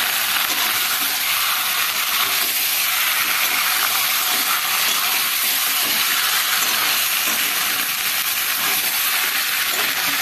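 Chicken pieces, fried potatoes and spice paste sizzling steadily in hot oil in a very hot kadai, at the stage where the meat is sautéed in its masala.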